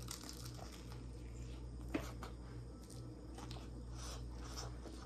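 Faint chewing and small crackles of someone eating fried chicken close to the microphone, with one sharper click about two seconds in, over a steady low hum.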